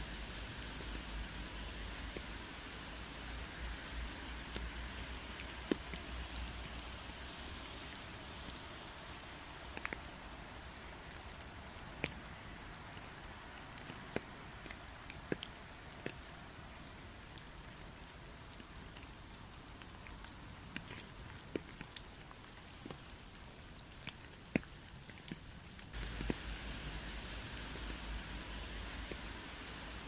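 Steady rain falling, with scattered louder drops striking close by.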